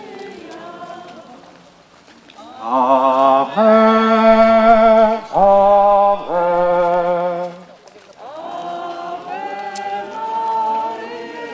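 Pilgrims in a procession singing a hymn unaccompanied. The singing is soft at first, rises to loud, long held notes in three phrases in the middle, then goes softer again near the end.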